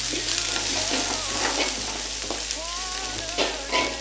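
Sliced onion and garlic sizzling in hot oil in a metal wok while a metal spatula stirs them, scraping against the pan, with a few louder clinks near the end.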